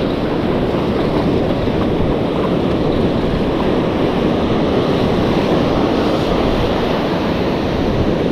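Steady ocean surf, with wind noise on the microphone.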